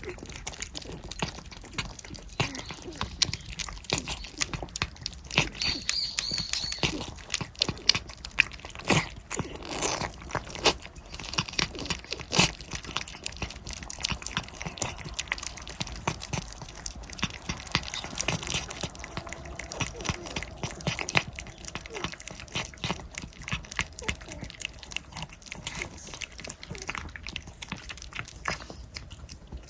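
Several cats eating churu lickable treats: a dense, irregular run of quick licking smacks and chewing clicks.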